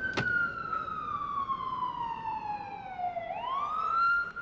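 A siren wailing. Its pitch falls slowly over about three seconds, then sweeps quickly back up and holds near the end. A sharp click sounds just after the start.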